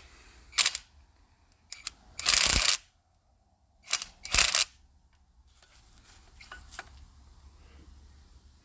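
Hand tools clinking and rattling against engine hardware while bolts are worked loose: a short knock, then two half-second clattering rattles a couple of seconds apart, followed by faint scattered clicks.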